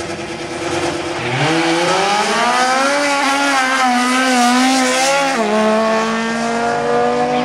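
Drag-race launch of a Honda Civic hatchback and a BMW compact: the engines hold steady revs at the line, then about a second in they pull away with the pitch rising steeply under hard acceleration. About five seconds in an upshift drops the pitch sharply, and it climbs again.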